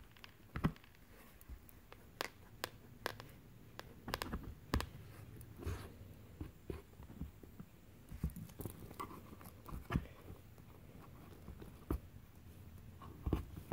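Scattered, irregular light clicks and knocks of hard plastic being handled as an Echo Show 5 smart display is fitted onto its adjustable stand.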